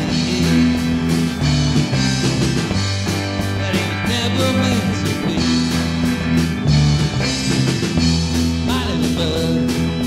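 Garage rock band playing a rehearsal demo: electric guitar over bass and drums, with a bass line that moves note to note every second or so under a steady drum beat.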